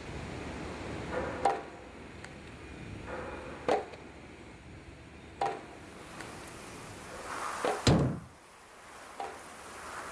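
An axe chopping firewood on a wooden chopping block: sharp wooden chops about every two seconds, the heaviest about eight seconds in. A steady wind-like hiss lies under the first part and drops away after the heaviest chop.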